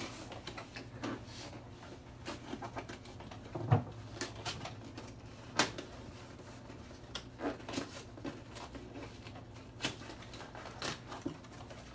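Cardboard shipping box being opened by hand: scattered taps, scrapes and rustles of the flaps and packing, the sharpest about four and five and a half seconds in, over a steady low hum.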